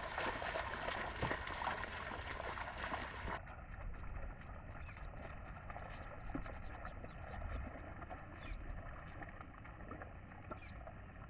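Oxen and a plough working through a wet rice paddy: water and mud sloshing and splashing, with many small scattered clicks and a few faint high chirps.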